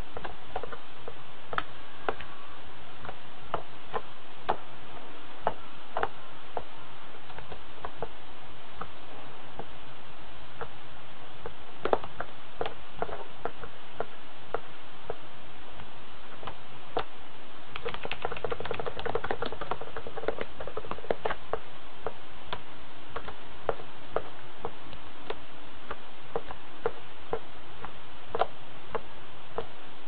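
Irregular small sharp clicks and taps from a budgerigar moving and tapping about in front of a toy, sometimes several a second, with a brief rustling patch about two-thirds of the way in, all over a steady hiss.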